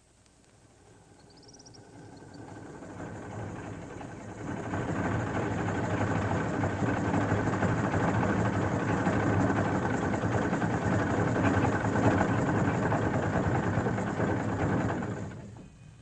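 Steady rumbling mechanical noise like a running engine, swelling up over the first few seconds, holding, then cutting off abruptly shortly before the end.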